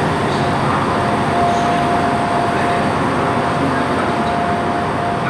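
Class 150 diesel multiple unit running slowly into the platform beside a standing Class 175 diesel unit, with a steady rumble and a steady mid-pitched whine from about a second in.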